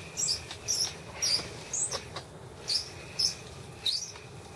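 Squeaky ice-fishing reel being cranked to bring up a hooked fish, giving a high-pitched squeak about twice a second.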